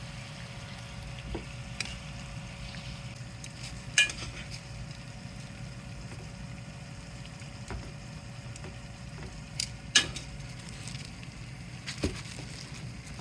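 Meat frying in a pan, with a steady sizzle under a scattering of sharp clinks from a utensil against the pan. The loudest clinks come about four and ten seconds in.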